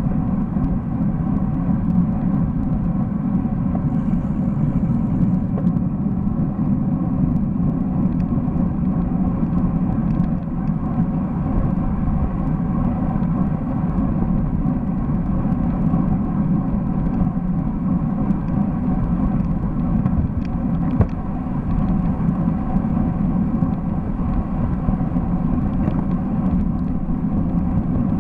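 Steady rumble of wind and road noise on a bicycle-mounted camera's microphone while riding a road bike in a group, with one brief knock about three quarters of the way through.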